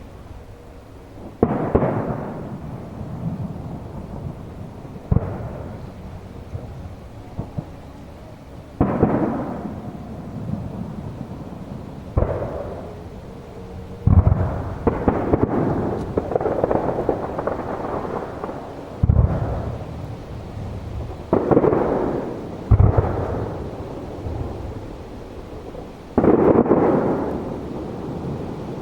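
Aerial firework shells bursting in a display: about nine deep booms at irregular intervals, each trailing off in a rolling rumble, with the bursts coming thickest in the middle of the stretch.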